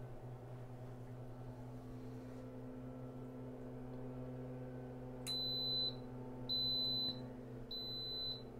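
Instant Pot electric pressure cooker beeping three times, about five seconds in: steady high beeps of a little over half a second each, about a second apart, the signal that it has started to build pressure. A low steady hum runs underneath.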